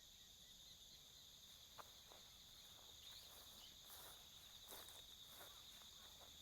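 Faint steady chirring of autumn night insects such as crickets, several high-pitched voices layered together, with a few soft taps or rustles.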